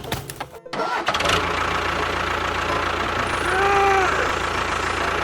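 An engine-like running sound starts about a second in and holds steady. Around the middle a short tone rises and falls in pitch.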